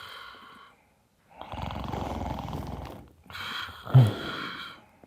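A man snoring twice: a long, breathy snore starting about a second and a half in, then a shorter one with a brief throaty snort about four seconds in.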